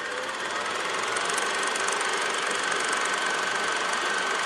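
Film projector sound effect: a steady mechanical clatter that builds up over the first second and then runs evenly, with a thin high whine over it.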